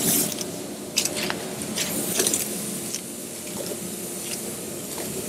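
Shop towel wet with wax and grease remover wiping down a painted car body panel: a run of quick swishing strokes of cloth on the paint, over a steady low hum.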